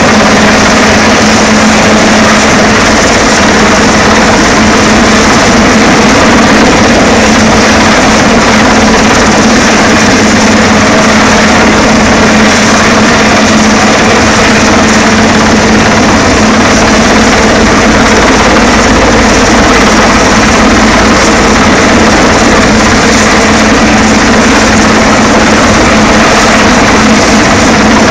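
Coastguard search-and-rescue helicopter hovering close overhead during a winch drill, its rotor and turbine engines running loud and steady with a constant hum.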